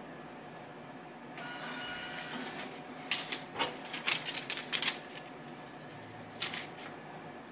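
Bitcoin kiosk's receipt printer running briefly with a steady whine as it prints a QR-code slip. It is followed by a quick run of sharp clicks and paper rustle as the slip is cut and pulled free.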